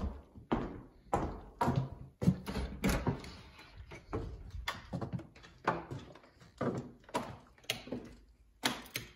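Footsteps at a steady walking pace, about two sharp steps a second.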